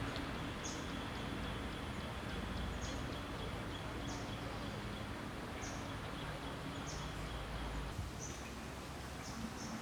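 Steady outdoor background hiss with a short, high chirp repeating every second or two.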